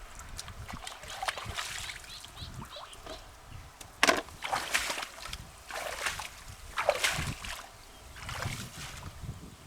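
Water splashing and sloshing in irregular bursts, the loudest about four seconds in.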